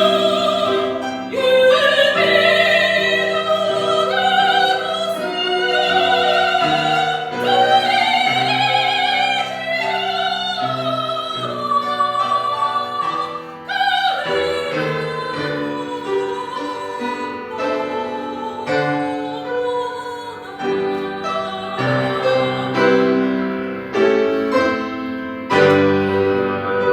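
Soprano singing with vibrato over piano accompaniment. About halfway through, the voice ends and the piano carries on alone.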